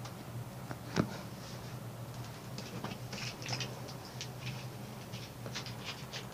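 Ride noise inside a moving cable-car cabin: a low steady hum with scattered light clicks and scratchy rustles, and one sharper click about a second in.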